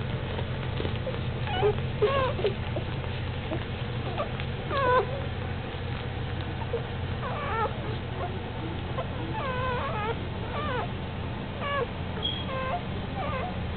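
Newborn blue nose pit bull puppies squeaking and whimpering while they nurse: many short, high squeals that rise and fall, scattered throughout, over a steady low hum.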